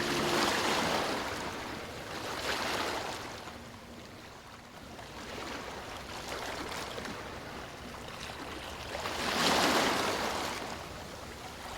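Ocean surf washing onto a beach: the rush of waves swells and fades, with a quieter lull in the middle and the biggest wave breaking near the end.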